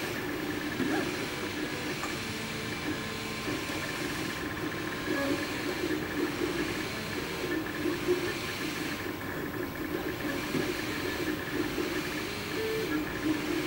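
MakerBot 3D printer printing: its stepper motors whine in tones that shift pitch every second or so as the extruder head moves, over a steady fan hiss.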